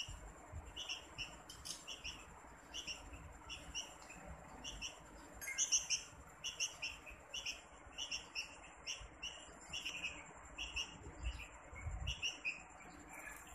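A bulbul chick gives short begging chirps over and over, about two a second, with its beak gaping.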